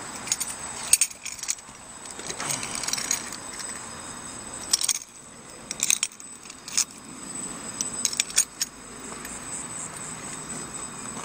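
Light clicks and metallic clinks of a flag pole mount and its loose bolts being handled and set down onto the boat deck, about a dozen at irregular intervals.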